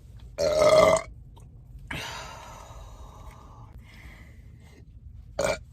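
A woman belches once: a loud, deep burp about half a second long, starting about half a second in. A fainter noisy rush follows about two seconds in and fades over about a second.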